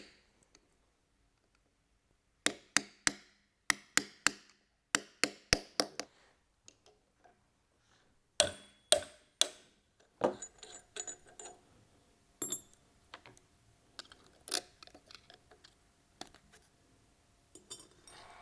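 Metal tapping, like a hammer on a punch, in three quick runs of about four light strikes, then three heavier strikes, followed by lighter clinks of metal parts being handled. This is the work of freeing the lock ring and bearing nut on the gear pump's shaft.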